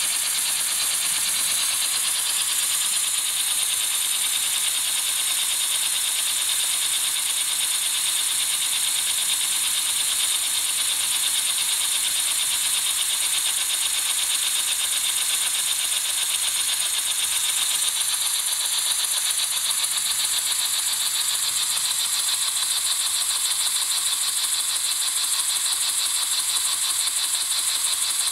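LEGO brick compressed-air piston engine running steadily on air from a compressor blow gun: a continuous hiss of air with a fast, even clatter from the plastic piston, slide valve and flywheel.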